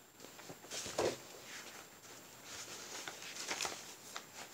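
Soft rustling and light knocks of a paper pattern book being handled and set down, loudest about a second in.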